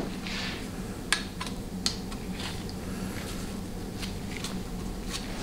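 Scattered light metal clicks and taps as a steel feed pipe is handled and set into place on a 700R4 automatic transmission's valve body. A faint steady low hum runs underneath.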